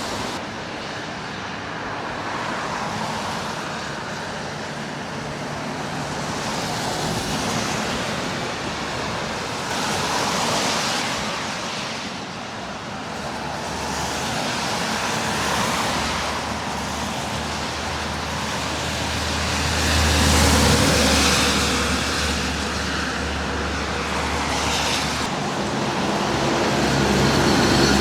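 Street traffic passing, tyres hissing by in swells several times. A heavier vehicle's low engine hum builds through the second half and is loudest about two-thirds of the way in.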